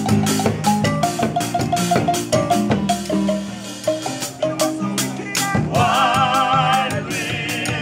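Wooden marimbas played together: quick struck notes over a low bass line. About six seconds in, the players sing out together over them, and the voices come back briefly near the end.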